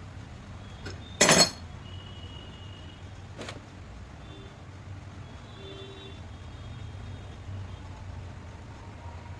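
Metal parts and tools being handled, with one loud clank a little over a second in and a few lighter clicks and faint metallic rings after it, over a steady low hum.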